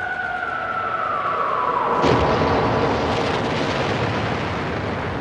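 Battle sound effects: the falling whistle of an incoming artillery shell, ending in an explosion about two seconds in whose rumble dies away slowly.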